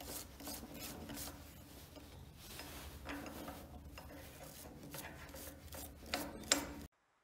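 Quick back-and-forth scrubbing and scraping of hand tools, a small wire brush and a scraper, on the rusty steel of an old grease gun part clamped in a bench vise. Near the end come a few sharper scrapes, then the sound cuts off suddenly.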